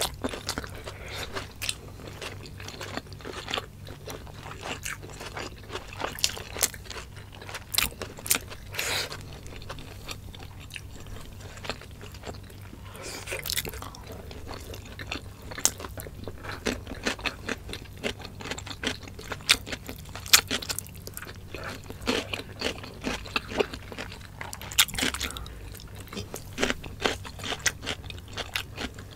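Eating sounds: two people chewing and biting adobo chicken gizzards and livers with rice, with irregular crunches and wet mouth clicks.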